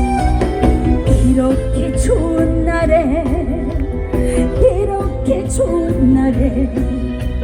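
A woman singing a Korean trot song with vibrato over a live band's amplified backing.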